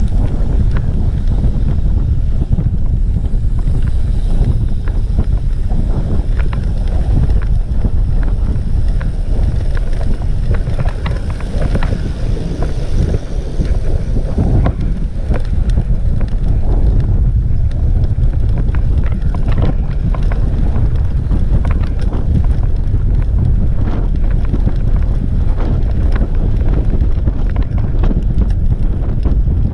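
Wind buffeting the microphone of a camera riding on a road bike at speed: a steady, loud low rumble with scattered faint clicks.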